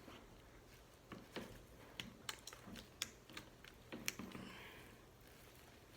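Faint, irregular clicks of a hand crimping tool being squeezed onto an RJ45 plug on an Ethernet cable: about nine small clicks between one and four seconds in.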